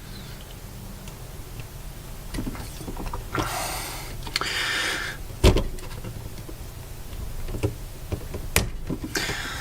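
Small handling noises from a toy lightsaber hilt being taken apart: scraping and rubbing as a small plate is worked off, with two sharp clicks, about five and a half and eight and a half seconds in.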